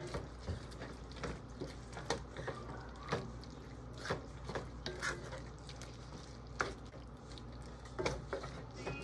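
A wooden spatula stirring beef and onions in a nonstick frying pan, scraping and lightly knocking against the pan at irregular intervals over a steady low hum.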